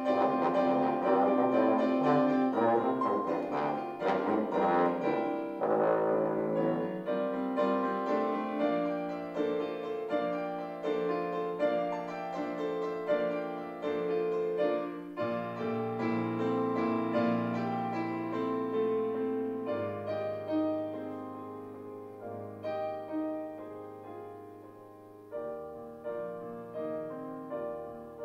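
Trombone with piano accompaniment playing classical music. The trombone rests through the middle while the piano plays on alone, growing quieter, and the trombone is back in by the end.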